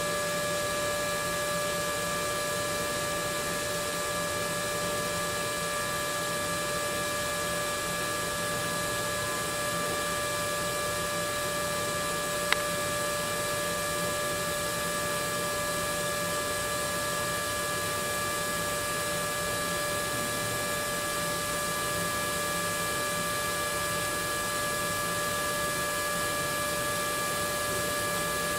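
TIG welding arc running steadily: an even hiss with a constant buzzing whine on top. A single sharp click comes near the middle.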